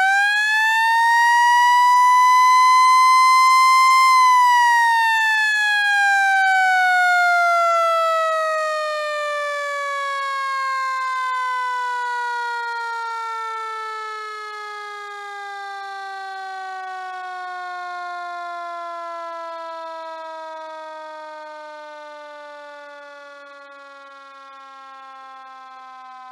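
Fire truck siren rising in pitch for about four seconds, then winding slowly down in pitch and fading away over the rest.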